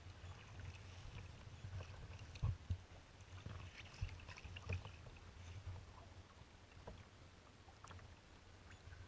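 Choppy water slapping and splashing against a kayak's hull over a steady low wind rumble, with a few louder knocks about two and a half, four and nearly five seconds in.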